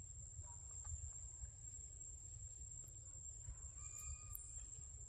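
Quiet forest ambience: a steady high-pitched insect drone over a low rumble, with a faint short call about four seconds in.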